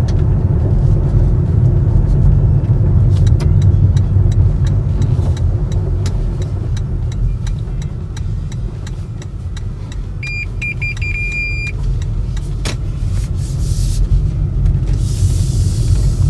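An engine running steadily with a low rumble. Scattered clicks come a few seconds in, a short series of beeps follows a little after ten seconds, and two hissing bursts come near the end.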